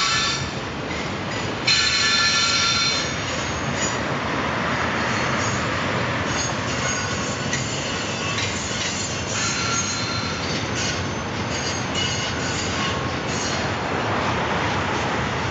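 Double-stack intermodal freight train of container-laden well cars rolling past with a steady rumble of wheels on rail. High metallic squeals come from the wheels, loudest about two seconds in and returning on and off after that.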